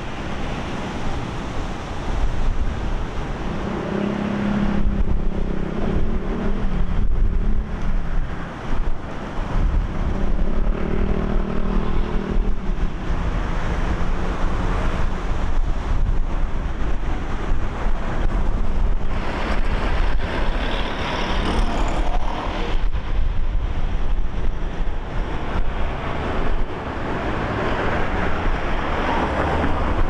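City road traffic with wind buffeting the microphone. Vehicles pass, and an engine hum holds steady from about 4 to 9 seconds in and again from about 10 to 13 seconds in.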